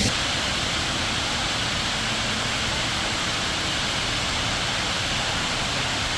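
Khor Fakkan waterfall: water pouring down, a steady even rushing with no breaks.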